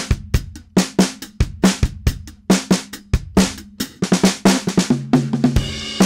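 A drum kit playing a groove of kick and snare hits, recorded with a single Shure SM57 microphone and EQ'd with a Pultec EQP-1A: low end boosted at 60 Hz and the top above 10 kHz shelved off, for a crunchy, vintage, lo-fi sound. The hits grow busier near the end.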